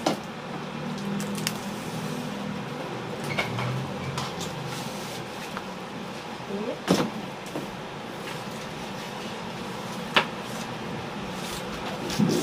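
Paper pads and card covers being handled and fitted together on a workbench during hand bookbinding: rustling and shuffling with a few sharp knocks, the loudest about seven and ten seconds in, over a steady background hum.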